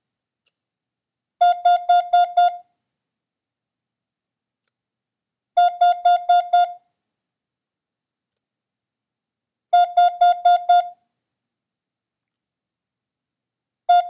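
Morse code practice tone sending the number 5: five quick dits in a row, played three times about four seconds apart. Right at the end, two more dits, the letter I, slipped in as a test.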